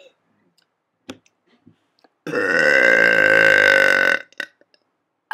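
One long, loud, deliberate burp lasting about two seconds, starting about two seconds in and holding a fairly steady pitch. A few faint clicks come before it.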